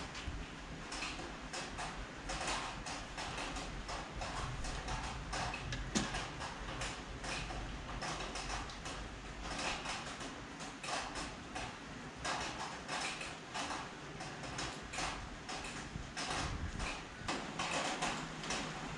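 Irregular rustling and scratching of hands working through long hair as it is gathered into a ponytail, with one sharper click about six seconds in.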